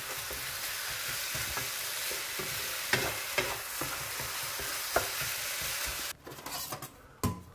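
Bami noodles and vegetables sizzling in an electric wok while being stirred with a wooden spatula, with a few sharp knocks of the spatula against the pan. The sizzle cuts off suddenly about six seconds in, leaving only a couple of light knocks.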